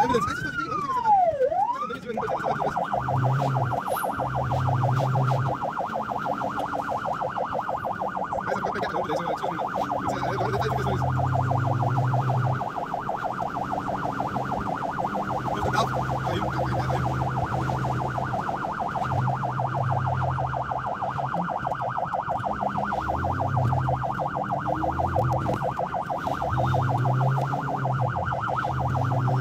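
Ambulance siren heard from inside the cab while responding to a call: one slow wail sweeping up and down, then about two seconds in it switches to a fast, steady yelp, going back to the wail right at the end.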